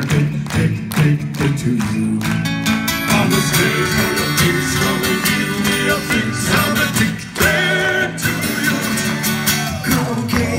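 Live acoustic rock band: steel-string acoustic guitar strummed in a steady rhythm, with voices singing over it from about two seconds in.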